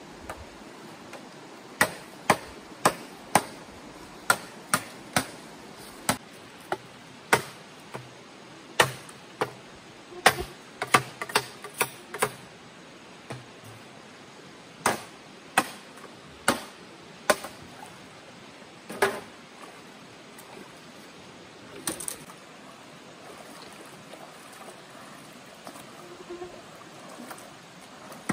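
A run of sharp chopping knocks, about two a second for some ten seconds, then more widely spaced strikes, over the steady rush of a stream.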